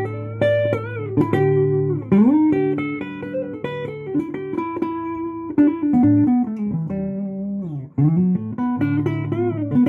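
A 1980s Japanese Daytone Privilege guitar played in a sound test: picked single-note lines with string bends and slides, over low notes left ringing.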